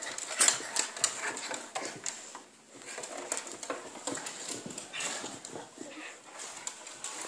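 Dogs play-fighting: a dense run of scuffling clicks and rustles, with dog sounds among them. It drops off briefly about two and a half seconds in.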